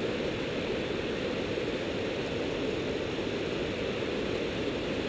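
A small forest creek tumbling over rocks and fallen logs: a steady rush of water.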